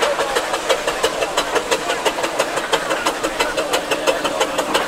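Steam road roller chuffing as it drives along: an even, rapid beat of exhaust puffs, several a second, without a break.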